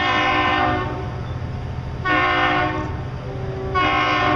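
A large air horn sounding in blasts: a long blast that ends about a second in, then two short blasts, the last one just before the end.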